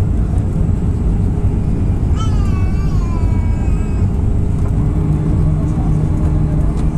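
Airbus A319 cabin noise at a window seat during descent: the steady roar of the engines and airflow. A steady low hum joins about five seconds in.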